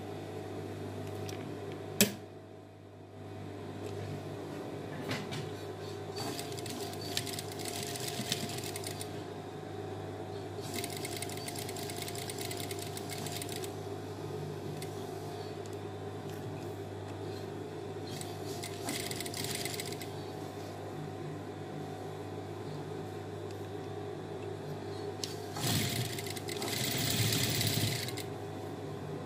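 Industrial flatbed sewing machine stitching fabric in four short runs of two to three seconds each, with a steady low hum between the runs. There is a single sharp click about two seconds in.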